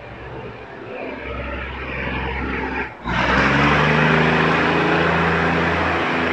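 Diesel railcar train pulling out of a station: a low engine rumble builds, then, after a brief break about three seconds in, the train runs close by with a loud engine note slowly rising in pitch as it gathers speed.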